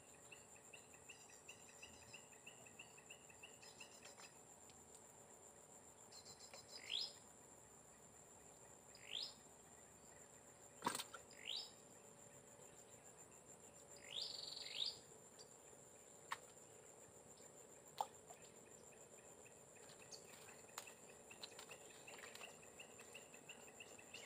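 Faint wild swamp-side ambience: a steady high insect drone, a short pulsed trill at the start, and a bird giving several short rising whistled calls. A single sharp click sounds about eleven seconds in.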